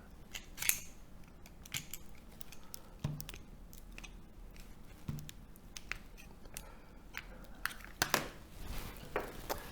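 Needle-nose pliers gripping and prying at the lacquered steel laminations of a transformer core: scattered small metallic clicks and scrapes at irregular intervals, a couple of sharper ones near the end.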